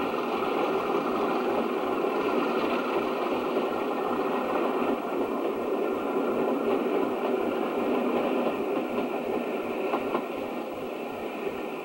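British Rail Class 50 diesel locomotive hauling a passenger train past, its engine and the rolling coaches making a steady, loud rumble that eases a little near the end.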